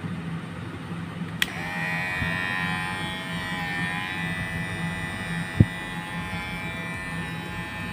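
Kemei cordless hair trimmer switched on with a click about a second and a half in, then its motor and blade running with a steady buzz. A single sharp tap comes a few seconds later.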